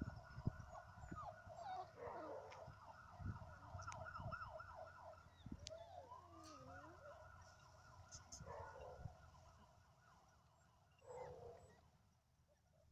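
Faint, high wavering whines from Dalmatian puppies, held cries that bend in pitch, with a short whimper near the end and a few low thumps underneath.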